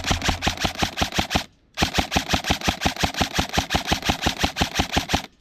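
Airsoft gun firing full-auto in two long bursts of rapid, even shots, about ten a second, with a short break about a second and a half in.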